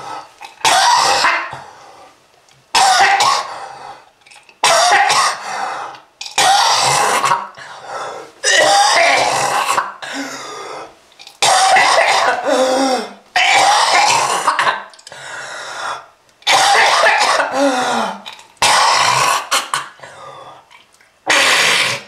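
A person coughing hard in about ten harsh fits spaced roughly two seconds apart, some trailing off in a falling groan: a heavy smoker's cough.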